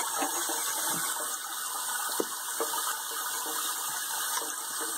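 Kitchen sink faucet spraying steadily into a basin of bathwater, with light splashing from a baby's hands in the water.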